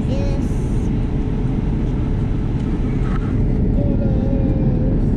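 Airliner cabin noise in flight: the steady low rumble of the engines and rushing air, heard from inside the cabin at a passenger seat.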